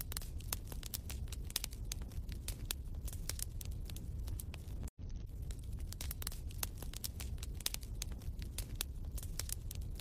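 Wood fire crackling in a fireplace: irregular sharp snaps and pops over a low steady rumble, with a momentary dropout in the sound about halfway through.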